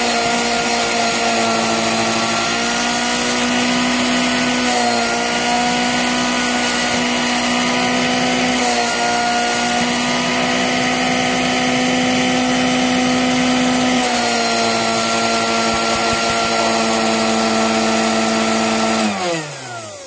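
A loud electric motor running steadily, its pitch stepping slightly a few times as if its load changes, then switched off about nineteen seconds in and winding down with a falling pitch.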